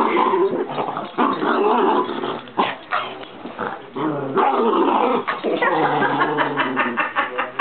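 Small Maltese dog growling almost without a break, a rough, rumbling growl that dips and swells: resource guarding, protecting his toy from being taken.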